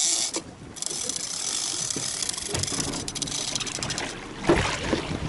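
Big-game fishing reel clicking rapidly with a ratchety whir as line is worked under load from a hooked bluefin tuna. A single thump about four and a half seconds in.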